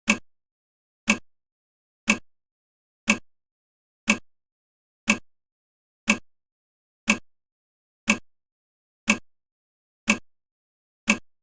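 Countdown timer's ticking sound: one short, sharp clock-like tick every second, evenly spaced, with silence between the ticks.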